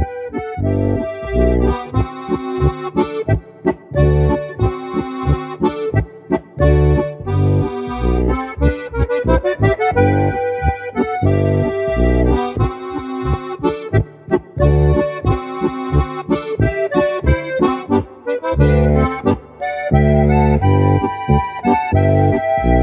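Steirische Harmonika, a Styrian diatonic button accordion in A-D-G-C tuning, playing a Boarischer folk dance tune: a melody on the treble buttons over a regular pulsing bass and chord accompaniment.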